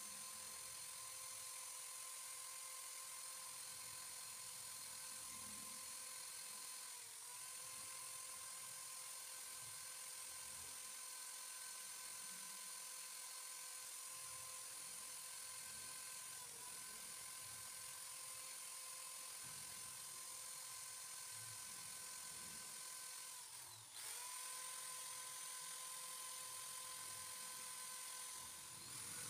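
Electric hand drill running steadily as a makeshift lathe, spinning a fishing-float blank that is being sanded; its whine sags briefly three times, most at the third, then runs on a little louder.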